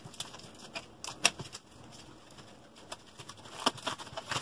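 Books being picked up and set down on a desk: a handful of light knocks and taps, the clearest about a second in and near the end, with soft rustling between.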